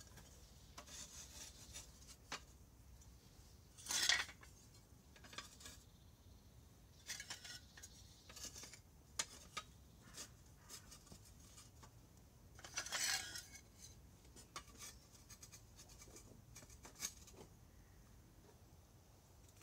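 Handmade fired-clay roof tiles clinking and scraping against one another as they are set in place on a stick-framed roof. There are light clicks throughout, with two louder scrapes, one about four seconds in and one about thirteen seconds in.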